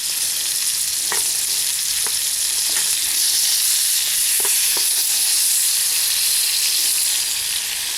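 Chicken tenders in olive oil sizzling steadily in a hot pan, with a few short pops or clicks scattered through.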